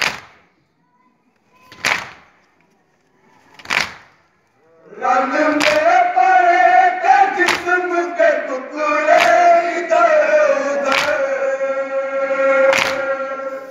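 Matam: a group of mourners striking their chests in unison, one loud slap about every two seconds. From about five seconds in, men's voices join, chanting a drawn-out noha lament between the beats and ending on a long held note.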